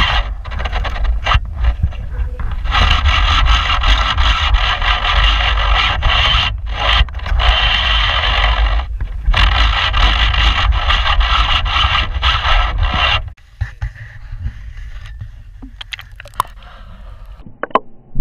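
Fly reel ratcheting in long runs with short breaks as a hooked fish is played on a bent rod, over a low wind rumble on the microphone. It stops abruptly about thirteen seconds in, leaving only faint scattered clicks.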